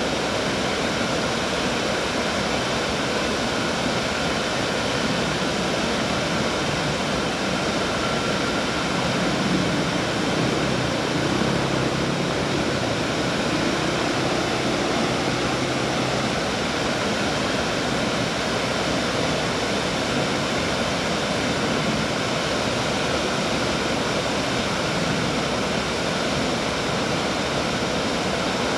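River water pouring over a low dam and rushing across a rocky bed: a steady, unbroken rush of falling water.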